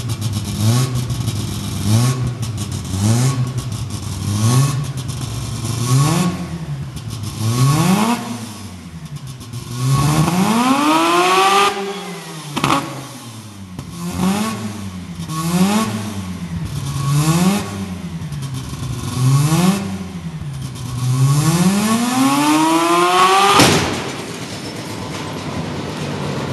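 Mazda rotary engine free-revved in quick blips, about one every second and a half, with two long pulls up to high revs. About 23 seconds in, at the top of the second pull, a sharp bang as the flywheel explodes; the engine stops at once, leaving a steady rushing noise.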